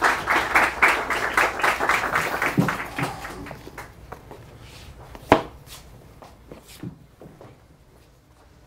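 Audience applause, a dense patter of many hands clapping that dies away over the first three to four seconds. About five seconds in comes a single sharp knock, followed by a few fainter knocks and shuffles.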